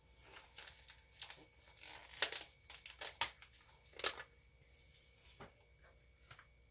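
Small handling noises from measuring out mica powder: scattered light clicks, taps and rustles of containers, packaging and a scoop, a handful of separate sharper ones spread through.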